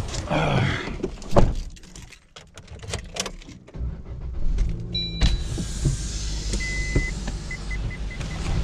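Suzuki Swift being boarded and started: a door shuts with a thump about a second and a half in, then an electronic chime sounds and the engine starts around five seconds in and runs at idle. A warning chime beeps in a row of short tones near the end.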